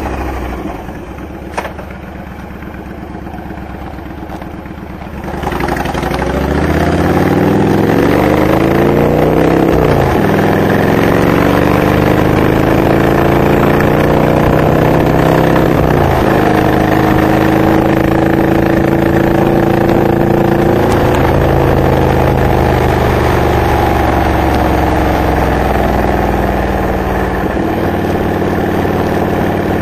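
Honda VTX 1300R V-twin running through Hard Krome K2 exhaust pipes with Michael's Resonators baffles. It runs low and quieter at first, then pulls hard about five seconds in, its pitch climbing and breaking at two upshifts, before settling into a steady cruise.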